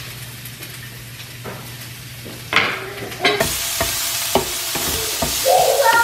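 Diced onion frying in a pan, sizzling, while a wooden spatula stirs it and knocks against the pan. The sizzle comes in loudly about halfway through, after a quieter start with a low steady hum and a few light knocks.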